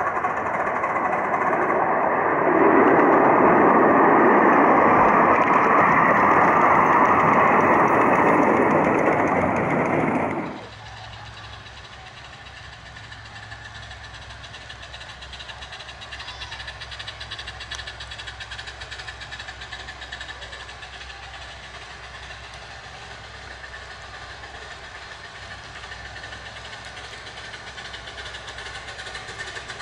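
A 15-inch gauge miniature train running close by, with loud engine and rail noise that swells after a couple of seconds. About ten seconds in, the sound cuts off abruptly, leaving a quieter steady low hum.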